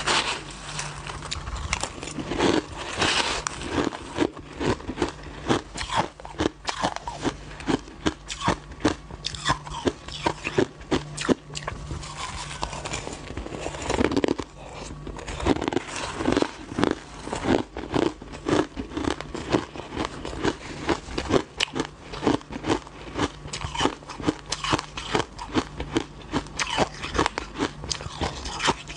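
Crushed ice being bitten and chewed, picked up close by a lapel microphone: a dense, irregular run of sharp crunches and cracks.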